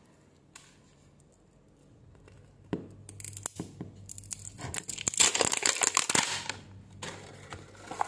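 Plastic wrapper of a toy surprise ball being torn and crinkled by hand, with crackling and small clicks. It starts after a quiet first three seconds or so.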